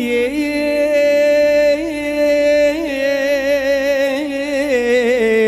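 A man singing a mawwal, an unmetered Middle Eastern vocal improvisation, into a microphone. He holds long notes with quick wavering ornaments, slides down in pitch near the end and breaks off.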